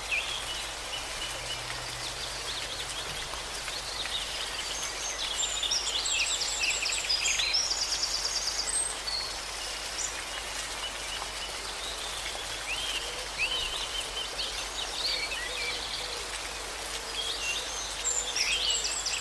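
Songbirds chirping and trilling over a steady rush of falling water. Bursts of rapid trills come about a third of the way in and again near the end, with short rising whistles in between.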